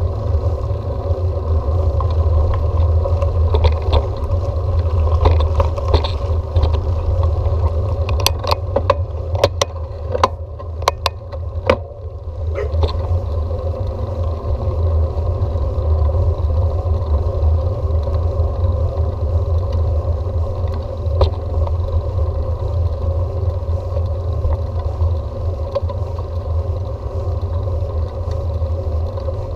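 Steady road rumble of a bicycle being ridden, with a run of sharp clicks and rattles about eight to twelve seconds in and one more click later.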